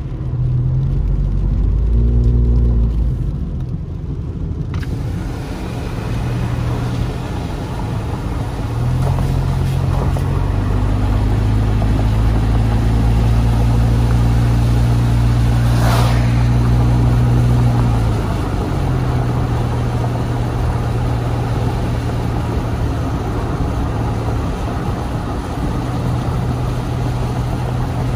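Car running along a wet road, heard from inside the cabin: a steady low engine and road hum with tyre hiss. The hiss gets louder about five seconds in, and the engine note rises for several seconds from about nine seconds in before easing off.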